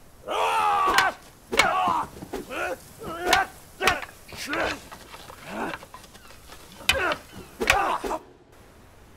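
Two men shouting and grunting in short, forceful cries as they spar with wooden swords, with several sharp wooden clacks as the swords strike. The cries and clacks stop suddenly a little over a second before the end.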